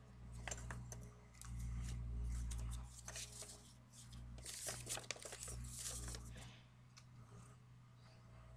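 Paper pamphlets being handled and unfolded, rustling and crinkling in short, irregular crackles over a low rumble.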